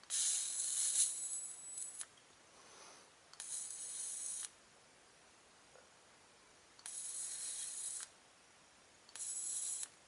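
Rechargeable dual-arc plasma lighter firing in four short bursts, each about a second long, a crackling electric hiss as its arcs burn against a cigar tip.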